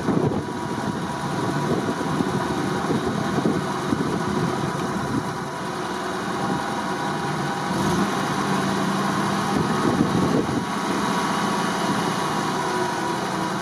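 Lifted UAZ off-roader's engine running steadily as it crawls down a muddy bank and into a shallow, water-filled rut.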